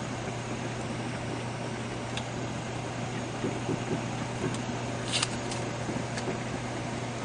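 Steady low hum and hiss of background noise, with a few light clicks and a short crackle about five seconds in from handling the plastic tube.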